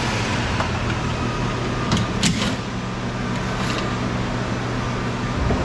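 Steady background hum and rush, with a few light clicks about two seconds in and one more a little before four seconds.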